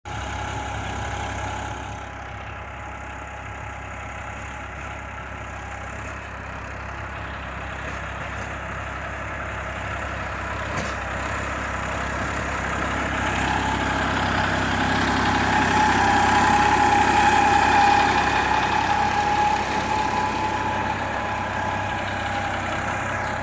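Massey Ferguson 246 Dynatrack tractor's diesel engine running steadily while ploughing, with a steady high whine over the engine note. It grows gradually louder to a peak about three-quarters of the way through, then eases off.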